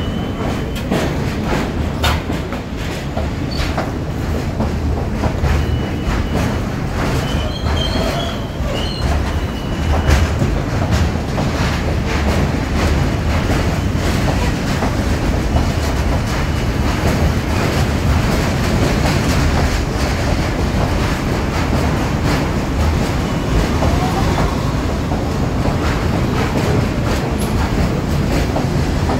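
R42 subway cars rolling along the platform: a steady low rumble of wheels on rail, with a rapid run of clicks as the wheels cross rail joints. A few brief, faint, high wheel squeals come through about a third of the way in.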